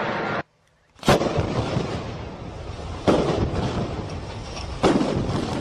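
Rumble of a collapsing building that cuts off suddenly, then three sharp blasts of demolition explosive charges about two seconds apart, each trailing off into a rumbling echo.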